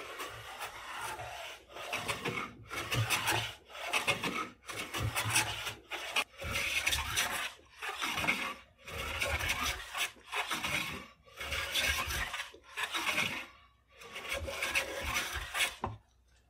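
Metal hand plane shaving the top edge of a walnut rifle stock blank, flattening it, in about a dozen push strokes of roughly a second each with short pauses between, the last stroke longer.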